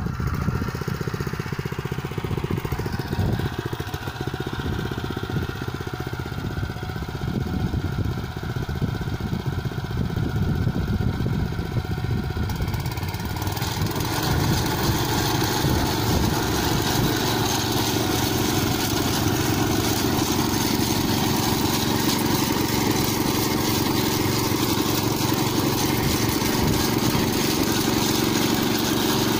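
Tractor engine running steadily under load while pulling a rotary tiller and a multi-row corn planter through dry soil. The sound changes in tone about halfway through.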